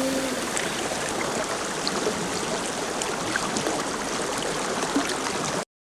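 Steady rush of running water, with a few faint ticks over it. The last held music notes fade out right at the start, and the sound cuts off abruptly near the end.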